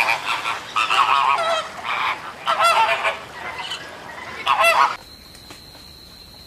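A large flock of flamingos honking, many calls overlapping in loud bursts, cutting off suddenly about five seconds in. After that there is only a faint, steady, high-pitched tone.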